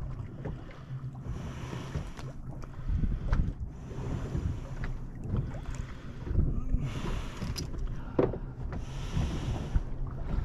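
Wind buffeting the microphone over the sound of open water lapping around a small boat, as an uneven low rumble with a few faint light ticks.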